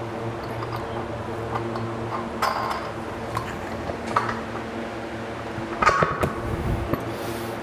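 A few light metallic clinks and knocks as a bench's seat bracket and its nuts and bolts are handled against the steel frame plates, the loudest cluster about six seconds in. A steady low hum runs underneath.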